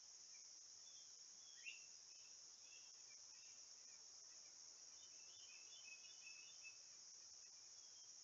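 Faint, steady, high-pitched drone of an insect chorus. A bird gives one sharp chirp about two seconds in, then a scatter of short faint calls near the end.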